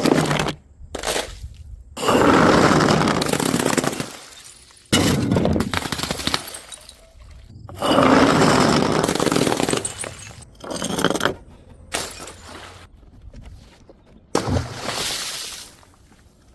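Glass bottles smashing one after another, each a sudden crash followed by a spray of breaking glass; the longest and loudest crashes come about two seconds in and again about eight seconds in.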